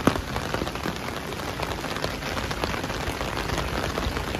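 Heavy rain pattering densely on a clear plastic umbrella overhead, many separate drop taps over a steady wash, with one sharper tap right at the start.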